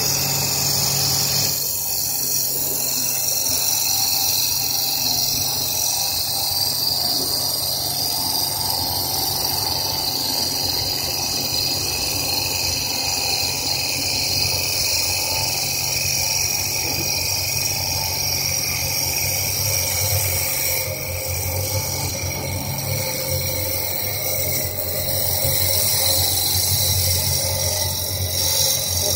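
CNC wood lathe turning a small stair baluster: the spindle motor hums steadily under the high hiss of the cutter shaving the spinning wood.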